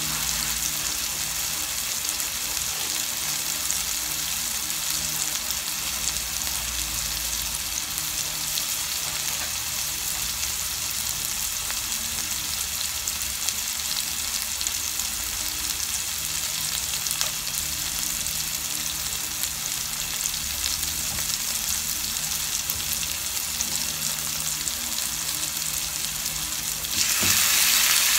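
Chopped onion and tomato frying in oil in a frying pan, a steady sizzle. About a second before the end it suddenly gets louder as raw chicken pieces go into the hot oil.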